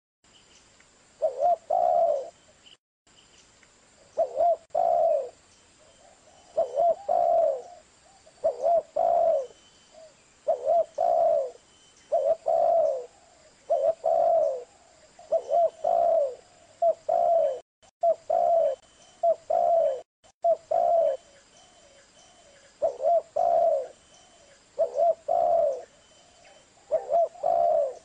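Spotted dove cooing: low two- or three-note coo phrases repeated every second or two.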